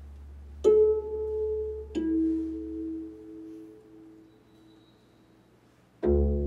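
Sparse plucked string notes from a bass koto and electric guitar duo. Two single notes are struck about a second apart and ring away while a low hum fades out. After a near-quiet stretch, a loud, low plucked note sounds just before the end.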